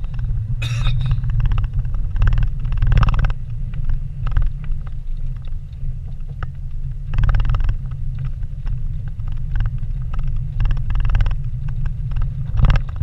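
Vehicle driving over a rough dirt road, heard from inside the cabin: a low, steady engine and tyre rumble with frequent knocks and rattles as it goes over bumps.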